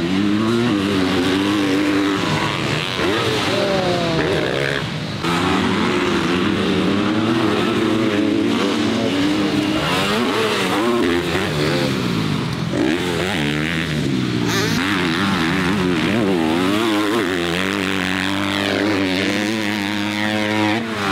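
Several motocross dirt bikes running on a track, their engines revving hard. The pitch keeps rising and falling as the bikes accelerate, shift and back off, with several bikes overlapping at once.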